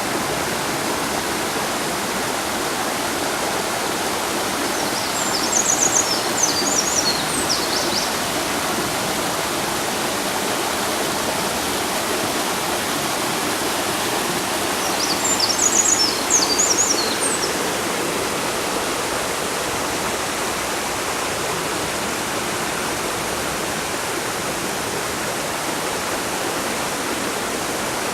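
River water rushing steadily. A songbird sings twice over it, a quick string of high notes about five seconds in and again about fifteen seconds in.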